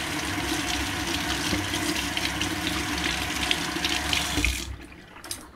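Kitchen tap running into a stainless steel sink while salted fish are rinsed by hand under the stream; the water stops near the end.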